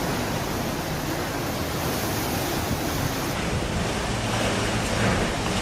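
Steady rushing storm noise, a loud even roar of wind and heavy rain, with a change in its character a little over halfway through.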